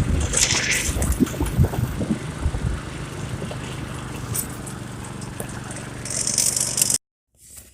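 Small go-kart engine running steadily as the kart pushes through floodwater, with water noise around it. The sound cuts off abruptly about seven seconds in.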